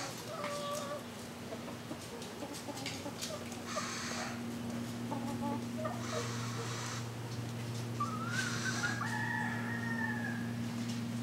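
Feral chickens calling: a few short clucks, then a rooster crowing once about eight seconds in, one long call that rises and then holds for about two seconds. A steady low hum runs underneath.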